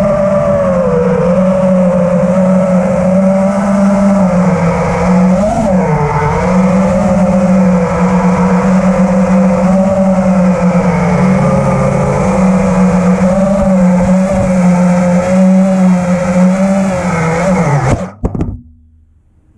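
FPV racing quadcopter's brushless motors and propellers whining, the pitch wavering up and down with the throttle. The whine cuts off abruptly near the end.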